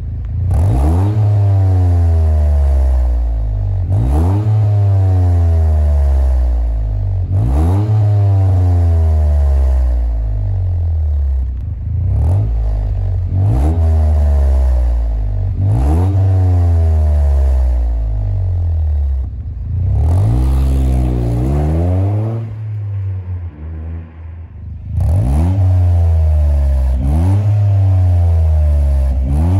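Toyota GR Yaris's turbocharged 1.6-litre three-cylinder engine revved repeatedly through an ARMS GT Titan T aftermarket titanium exhaust with the car standing still. Each rev climbs quickly and falls away, roughly every three to four seconds, with a quieter stretch about three-quarters of the way through.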